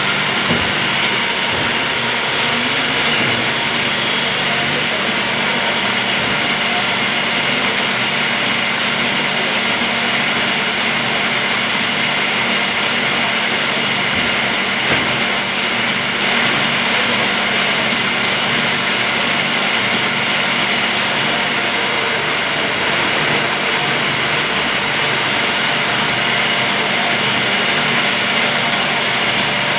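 Paper folding machine running steadily: a continuous mechanical whir and hum of its motor and rollers as sheets feed through.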